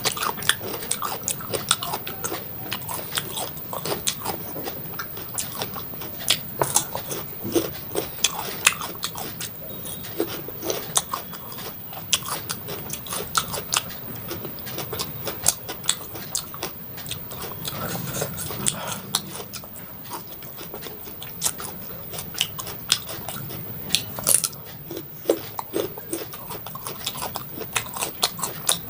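Close-miked crunching and chewing of raw salad vegetables: crisp bites and irregular wet crunches, several a second.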